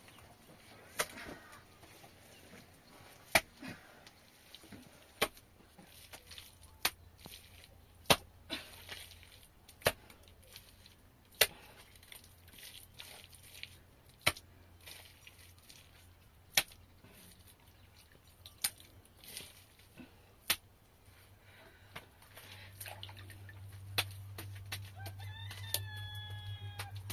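A series of sharp knocks, one every second or two, with a rooster crowing once near the end. A low hum comes in late.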